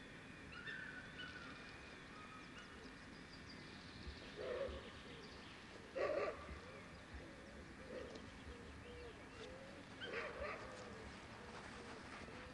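Dogs barking and yelping several times over the field, the loudest bark about six seconds in, with the faint voices of spectators underneath.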